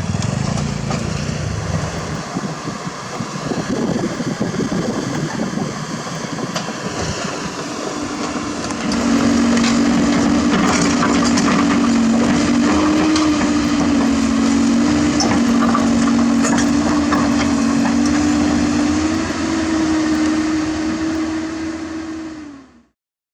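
Hydraulic excavator working in rock: diesel engine and hydraulics running, with stone scraping and knocking. About nine seconds in, a steady whine from the machine under load comes up and grows louder, then the sound cuts off suddenly near the end.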